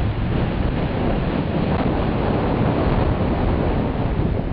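Wind buffeting the microphone during a downhill ski run, mixed with the hiss of skis sliding over snow; a steady rush without a break.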